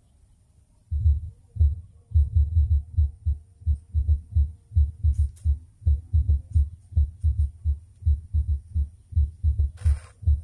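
Rapid, uneven muffled thumps on the microphone, about three or four a second, with a short rustle near the end.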